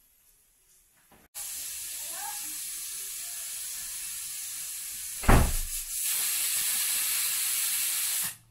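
Aluminium stovetop pressure cooker letting off steam through its whistle weight: a steady, high hiss that starts suddenly about a second in. A brief loud low burst comes about halfway through, and the hiss then runs louder until it cuts off abruptly near the end.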